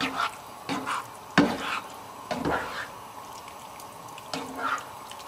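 A thick coconut-cream curry with chunks of fish and vegetables being stirred in a pan with a utensil: a run of short wet strokes at irregular intervals, the sharpest about one and a half seconds in, with a lull before a last few strokes near the end.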